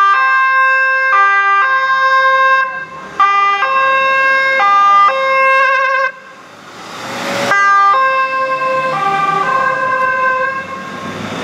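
Fire-brigade van's electronic siren sounding a multi-tone sequence, its pitch jumping between several notes every half second to a second, with a short warble about six seconds in. It drops out briefly during a rush of noise and then resumes.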